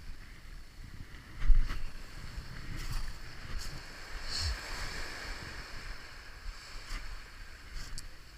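Wind rumbling on the microphone over washing water, with one sharp thump about one and a half seconds in.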